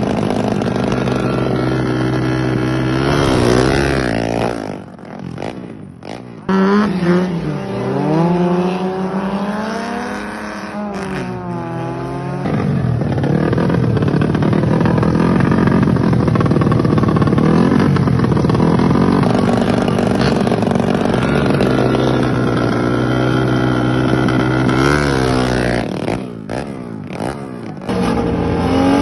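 Motorcycle engines revving at the start of drag races, from several short clips cut together. The revs are held, then climb and fall several times, then stay high, with brief drops in level at the cuts. A car engine comes in near the end.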